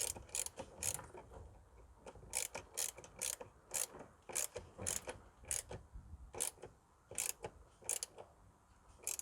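Hand ratchet clicking as the air filter box cover screws are tightened: runs of sharp clicks, about three a second, with short pauses between runs.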